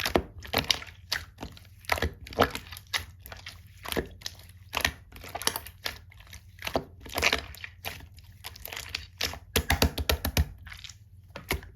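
Mixed slime worked by hand, giving an irregular run of short clicking, popping sounds a few times a second, with a quick cluster of pops near the end.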